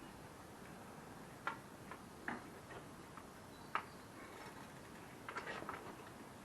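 A few sharp, irregularly spaced clicks and light metallic knocks, with a quick run of small clicks near the end: tools and bike parts being handled during the crankset and bottom bracket fitting.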